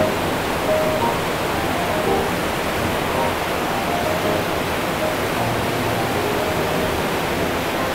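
Steady rush of the Oirase mountain stream, water running over rocks in an even, unbroken hiss.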